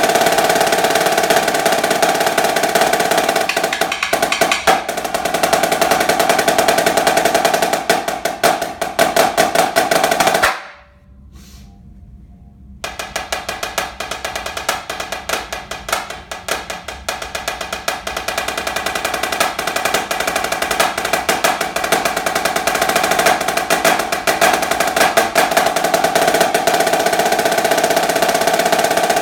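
Snare drum solo: dense rolls and rapid strokes that break off suddenly about ten seconds in, leaving a two-second pause. The drumming then comes back softly and builds to a loud roll again.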